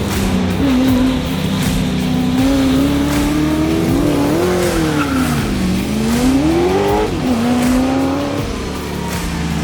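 Holden Commodore rally car's engine running hard, its pitch rising and falling with the throttle: it sinks to a low point about halfway through, climbs steeply, then drops suddenly about seven seconds in at a gear change.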